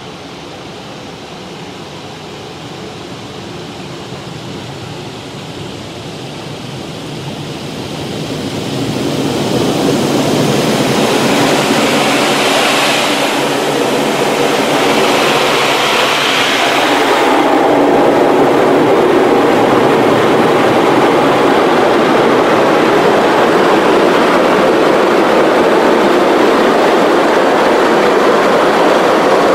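Christ Varius gantry car wash heard from inside the car: water spraying on the glass, then the rotating wash brushes reach the car and sweep over the windshield and body. The sound builds from about a quarter of the way in to a loud, steady whirring swish, with a brighter hiss for a few seconds as the brush crosses the windshield.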